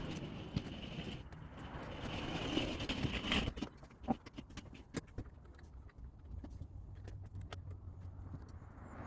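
Hands working on car parts: rustling and scraping for the first few seconds, then a string of small scattered clicks and light knocks.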